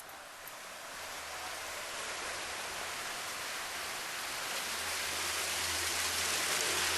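Water pouring down a boulder-built waterfall: a steady rushing hiss that grows gradually louder.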